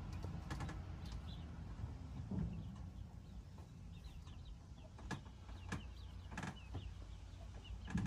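Racing pigeons in a wire loft: faint bird calls and short chirps with a few sharp clicks and taps, the clearest about five to six and a half seconds in, over a low steady hum.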